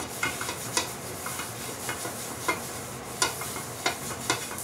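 A paper towel rubbed over an oiled non-stick frying pan in short, irregular wiping strokes, with scattered light scuffs and clicks.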